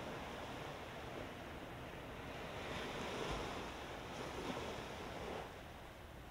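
Small waves breaking and washing up on a sandy beach: a steady hiss of gentle surf that swells twice and eases off near the end.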